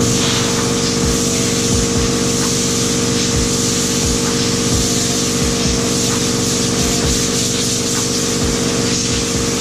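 Compressed-air shop equipment running steadily: an unchanging hum under a continuous hiss of air, with a few faint, irregular low thumps.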